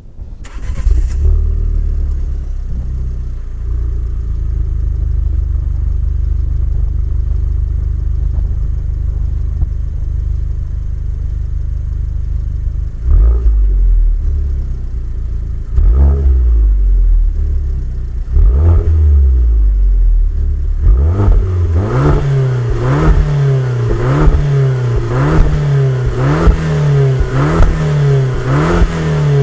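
Alfa Romeo MiTo Quadrifoglio Verde's 1.4-litre turbocharged four-cylinder engine on its stock exhaust, starting up and settling into a steady idle. After about thirteen seconds it is blipped three times, a few seconds apart, then revved up and let fall again about once a second.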